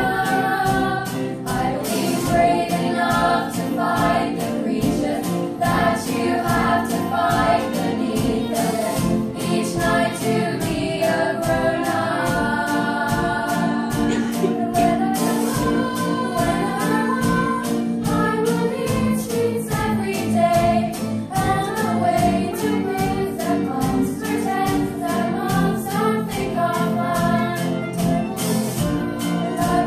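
A small girls' choir singing a musical-theatre song over instrumental accompaniment that keeps a steady beat. It is heard from far back in a large hall full of seated people.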